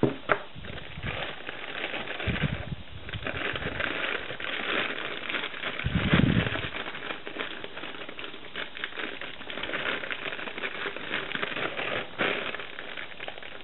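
Clear plastic bag crinkling and crackling as a monopod sealed inside it is handled and worked out of the wrapping, with a few dull low thumps along the way.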